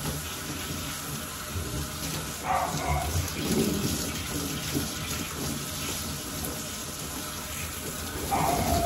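Water spraying from a hand-held hose sprayer onto a dog's coat and splashing into a stainless steel grooming tub, a steady hiss. Two short louder sounds break in, about two and a half seconds in and near the end.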